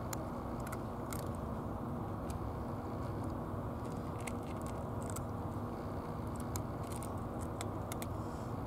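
A cat crunching dry kibble, a scatter of short, sharp crunches at irregular intervals, over a steady low hum.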